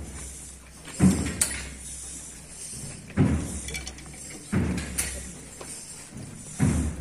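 Procession drum beating a slow, steady march: a deep thump about every one and a half to two seconds, with a few lighter sharp taps in between.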